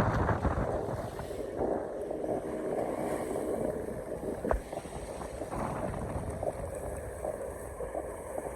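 Steady rushing outdoor noise with wind buffeting the microphone.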